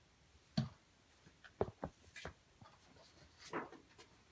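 Light handling noises of paper and cardboard: a soft thump about half a second in, a few sharp clicks and taps around the middle, and a short papery rustle near the end.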